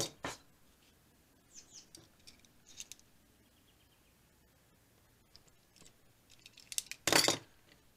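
Heat-shrink tubing being cut to length with a utility knife: faint scratching and small clicks, then one short, louder cutting noise about seven seconds in.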